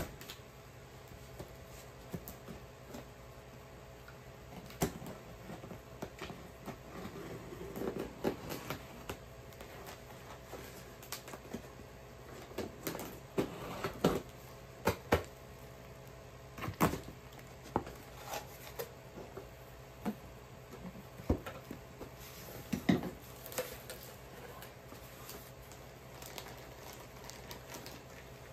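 Packing tape on a cardboard shipping box being slit with a blade, then the cardboard flaps opened and the contents pulled out: scattered scrapes, taps and crinkles over a faint steady hum.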